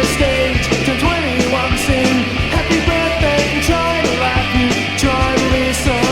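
Rock band recording playing: electric guitars, bass and drums at a steady, driving beat.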